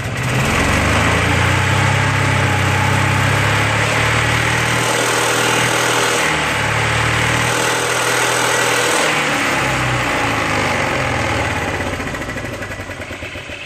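1987 Club Car golf cart's gas flathead engine running, freshly fitted with a new head gasket and sounding more powerful. Its speed shifts up and down in the middle, and it fades over the last couple of seconds.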